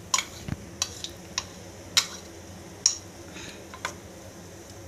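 Metal spoon clinking against a steel bowl while scooping pakora batter: about seven irregular sharp clinks, the loudest about two seconds in.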